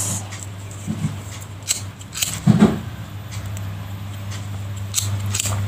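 Gas lighter clicked a few times to singe and seal the cut yarn ends of a crocheted piece, with handling rustle and a steady low hum underneath.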